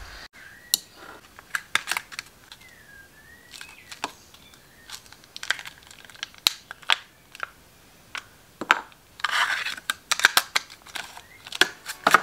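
Plastic clamshell pack of wax melts being handled and a wax cube popped out of it: a string of crinkles and sharp clicks, with a longer rustle about nine seconds in.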